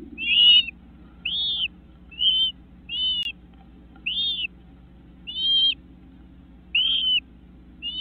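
Flycatchers in a nest box giving short arched calls, about one a second, as the parent feeds a brood of gaping nestlings. A faint steady low hum runs beneath.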